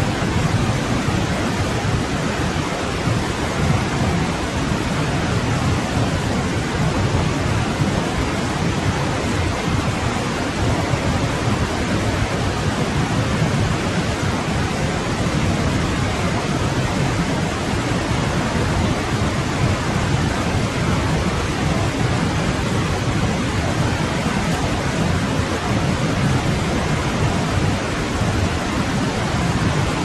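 Winter forest stream flowing: a steady, unbroken rush of running water, with no birdsong.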